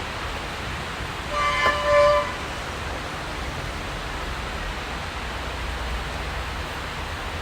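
Steady hiss of rain, with a short car horn beep about a second and a half in.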